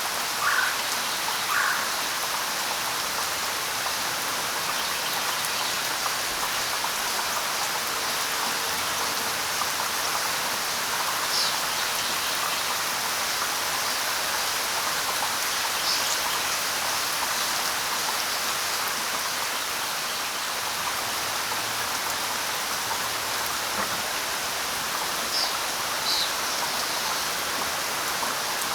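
Steady light rain falling, with a few short bird chirps: a cluster of three near the start and scattered higher chirps later on.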